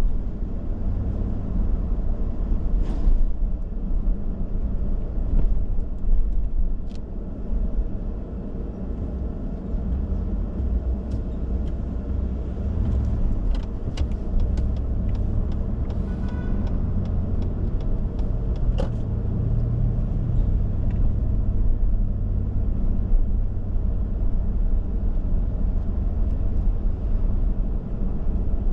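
Car driving: a low, steady rumble of engine and road noise, with scattered faint clicks and a brief high tone about halfway through.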